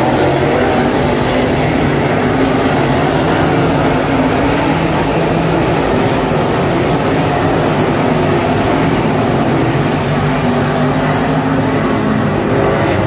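Dirt Super Late Model race cars' V8 engines running at speed around the track, a loud, steady, dense engine noise from the field of cars.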